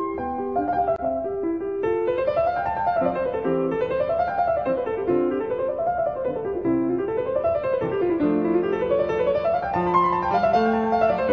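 Background piano music: flowing runs of notes climbing and falling in repeated waves over low sustained notes.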